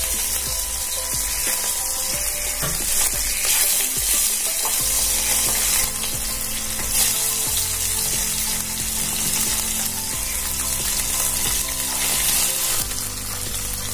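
Whole bhangon fish frying in hot mustard oil in a kadai, with a steady, dense sizzle of spattering oil.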